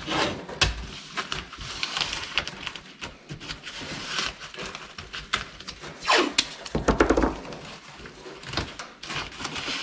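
Blue painter's tape being pulled off the roll and pressed down over clear plastic masking film on a wooden cabinet frame. The plastic crinkles in irregular rustles, with a few light knocks and louder tape rasps near the middle.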